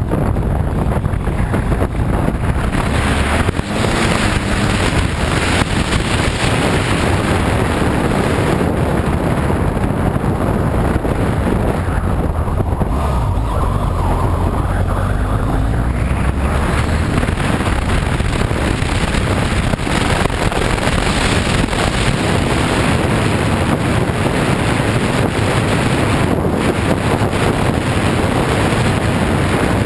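Wind buffeting the camera microphone of a BMW F 800 GS motorcycle riding down a dirt and gravel road, with the bike's 798 cc parallel-twin engine running underneath. A loud, steady rush with no pauses.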